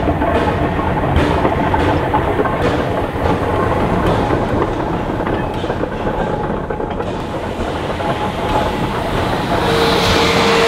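Narrow-gauge steam train running, with a steady rumble and wheels clicking over rail joints at regular intervals. About a second before the end a steady single-pitched tone and a rise in hiss begin.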